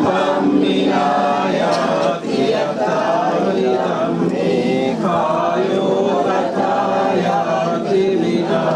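Buddhist devotional chanting by a group of voices, sounding together continuously.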